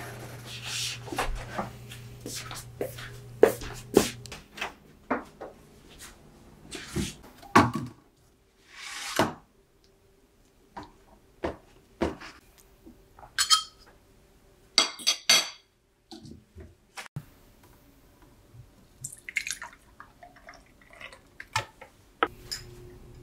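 Kitchen handling sounds: a string of separate clicks, knocks and taps of a knife, plate and cutlery. About nine seconds in there is a second-long pour, and a few seconds later a spoon clinks against a drinking glass several times.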